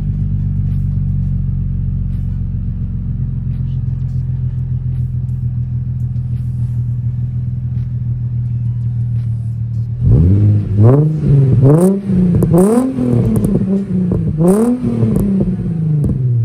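Infiniti G35's 3.5-litre VQ V6 idling steadily through an ISR single-exit exhaust, then revved in a run of quick blips from about ten seconds in before dropping back toward idle near the end.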